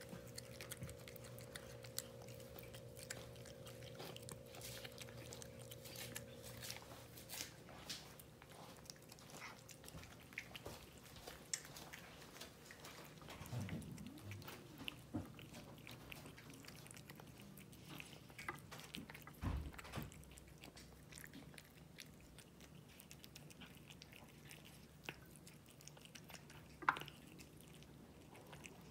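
Cats eating wet canned cat food from a bowl: faint, irregular chewing with small wet clicks.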